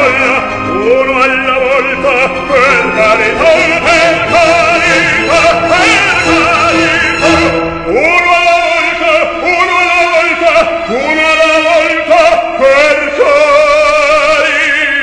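Male opera singer singing with strong vibrato over instrumental accompaniment, with several short notes that swoop upward in the second half.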